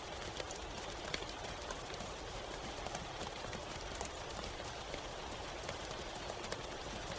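Steady rain, many scattered drops ticking and pattering on a hard surface over an even hiss, with no let-up.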